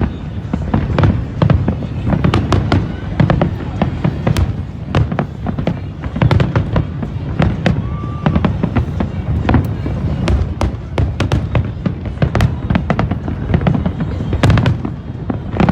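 Large aerial fireworks display going off without pause: many sharp crackles and pops over a steady rumble of low booms.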